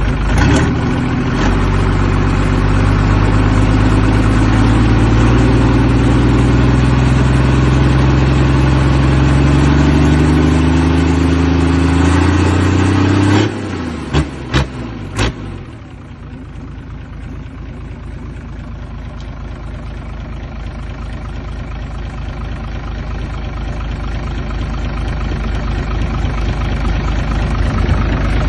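Isuzu 6HE1 straight-six diesel engine revved in one long, steady climb for about twelve seconds, then dropping off abruptly about halfway through, with three sharp knocks. It then runs quieter, building gradually louder.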